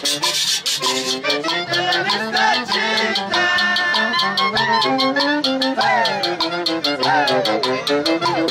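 Recorded band music from a folk orchestra: a melody over a fast, steady rattle-like beat, with sliding melody notes in the second half.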